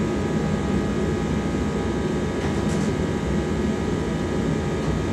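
A machine running steadily, a low, even rumble with faint steady tones above it.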